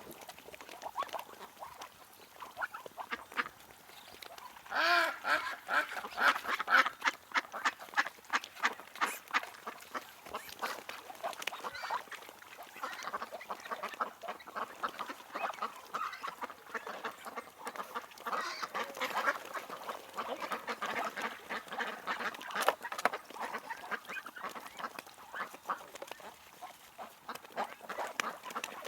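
Ducks quacking on a pond, many short calls in quick, overlapping runs, with louder stretches about five seconds in and again around twenty seconds in.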